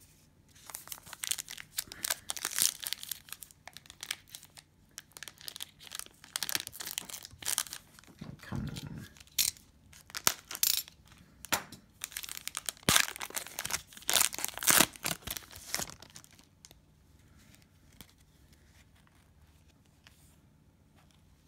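Cellophane wrapper of a Panini Prizm basketball cello pack being torn open and crinkled in the hands: a run of irregular ripping and rustling noises for about sixteen seconds, then only faint handling.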